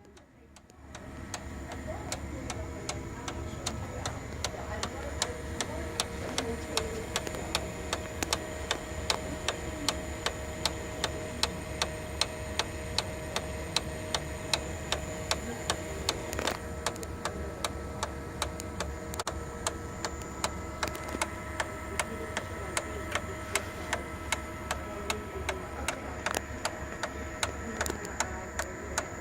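Sharp MX-series office copier idling with a steady hum and a loud, regular ticking, about two to three ticks a second. This is the ticking-knocking fault noise it makes at idle, not during copying.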